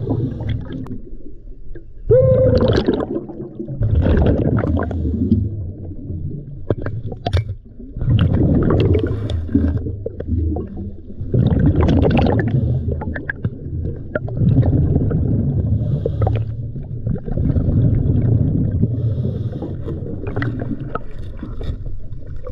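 A scuba diver breathing through a regulator, heard underwater: swells of bubbling, rumbling exhalation every couple of seconds with quieter inhales between.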